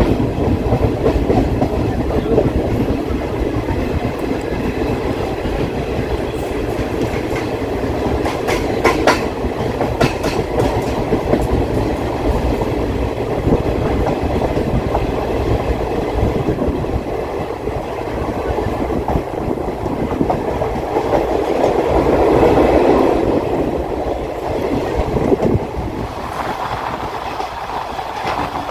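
ICF passenger coach running along the line, its wheels clattering over rail joints under a steady rumble, with a cluster of sharper clacks about a third of the way in.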